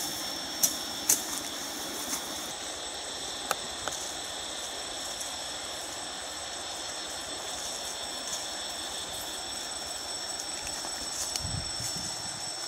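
Steady high-pitched insect chorus, several unbroken tones held together, with two sharp clicks about a second in.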